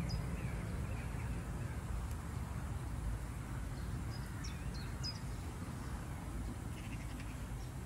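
Outdoor ambience: a steady low rumble with faint, brief bird chirps a few times, about halfway through and again near the end.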